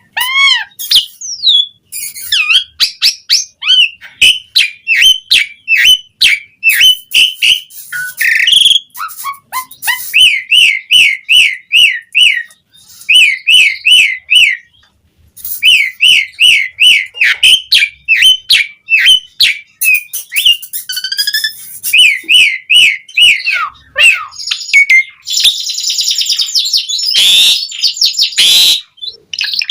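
Asian pied starling (jalak suren) singing vigorously: a fast, continuous run of clear whistled notes in repeated phrases, breaking briefly about halfway, then harsh, grating chatter near the end.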